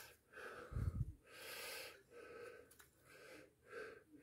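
Faint breathing close to the microphone, a string of soft breaths, with a low bump about a second in.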